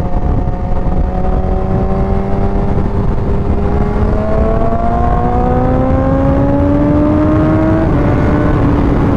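BMW S1000R's inline-four engine with an Akrapovic exhaust pulling at road speed under steady throttle, over heavy wind rush on the microphone. The engine note climbs slowly for several seconds, then dips slightly near the end.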